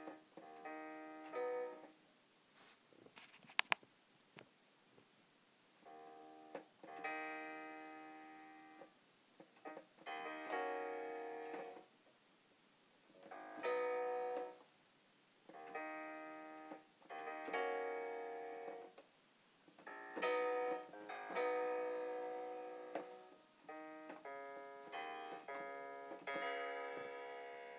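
Piano chords from the KORG Module app's Natural Grand piano sound, played slowly in short groups with pauses between them; each chord rings and fades away. A couple of sharp clicks about three and a half seconds in.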